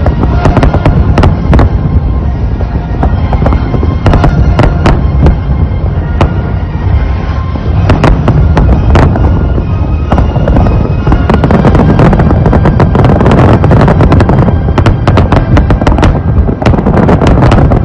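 Fireworks display: many sharp bangs and crackles over a continuous low rumble of explosions, with music underneath.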